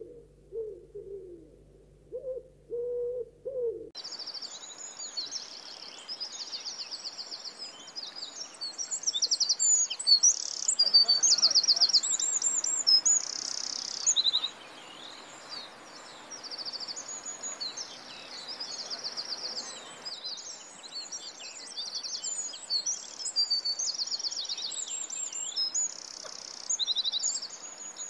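A few low hooting bird calls, then an abrupt switch about four seconds in to many small birds singing: dense, high-pitched chirps and rapid trills over a faint steady hiss, loudest a little before the middle.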